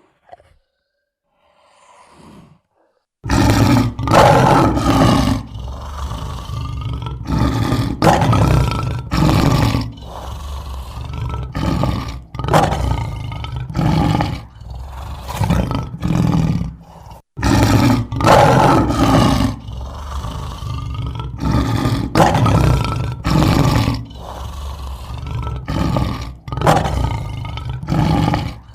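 An animal roaring in a long run of loud, repeated calls, about one a second, starting suddenly about three seconds in after a faint stretch.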